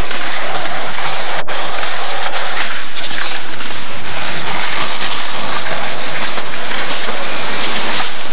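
Loud, steady rushing noise on a camcorder's built-in microphone, with no distinct events, broken only by a brief dropout about one and a half seconds in.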